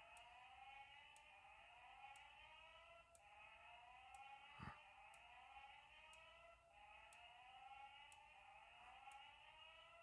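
Fire alarm sounding faintly, a repeating rising sweep tone at about one sweep a second. Thin ticks come about once a second, and there is one short thump a little before the middle.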